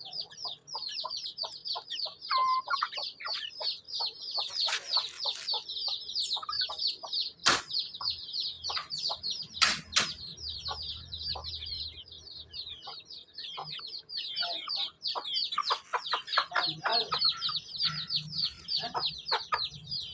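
Chicks peeping without pause in rapid, high, falling cheeps. Adult chickens cluck lower now and then, and a few sharp clicks stand out, the loudest about seven and a half and ten seconds in.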